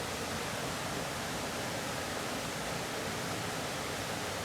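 Steady rushing of a fast-flowing mountain beck running over stones.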